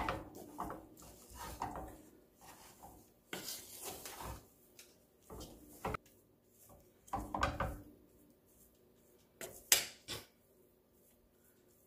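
Wooden spatula stirring and tossing rice vermicelli in a stainless steel pot, with uneven scrapes and knocks against the pot. The loudest knocks come about ten seconds in, after which it goes quiet.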